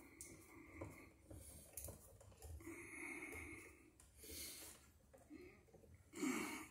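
Faint clicking and scraping of bare copper ground wires being twisted together by hand, with a man's breathing and short hums or grunts of effort; the loudest is a brief grunt just before the end.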